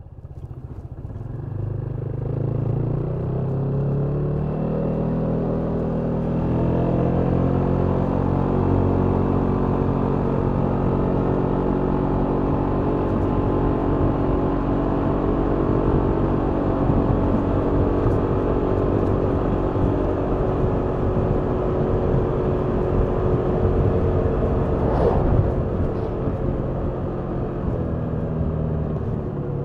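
Kymco Downtown 350i scooter's single-cylinder engine through its stock exhaust, heard from the rider's seat. It pulls up to speed over the first few seconds with the pitch rising, then runs steadily at cruising speed with wind and road noise. There is a brief rush of noise about 25 seconds in, and the engine eases off near the end.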